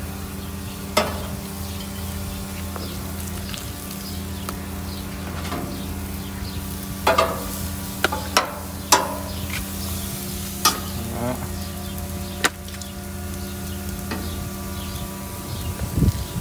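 Raw steaks sizzling on a hot gas grill grate, with several sharp clicks of metal tongs against the grate as more meat is laid down, over a steady low hum.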